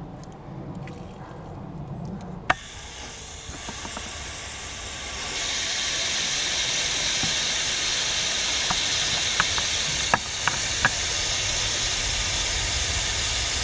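Water from a garden hose and spray gun rushing through a cooling system being flushed, a steady hiss that swells about five seconds in, with a few sharp clicks around ten seconds in.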